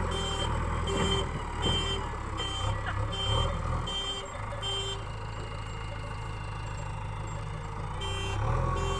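JCB backhoe loader's reverse alarm beeping about once every 0.7 seconds over its running diesel engine, the sign that the machine is backing up. The beeping stops about five seconds in and starts again near the end.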